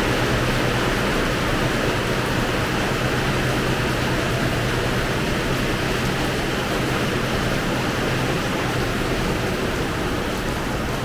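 Heavy rain pouring steadily, a dense even hiss. A constant low hum runs underneath it.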